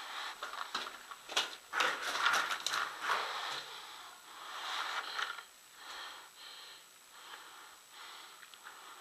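A person breathing hard, in noisy swells about a second long, with a few sharp clicks in the first three seconds.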